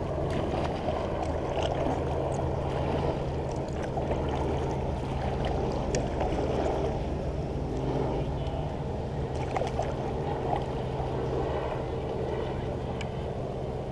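Kayak paddle strokes in the water, with small splashes and drips from the blades, over a steady low rumble.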